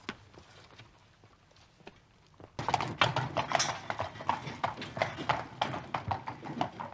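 Horse hooves clip-clopping at a quick pace, a dense run of strokes several a second, starting suddenly about two and a half seconds in.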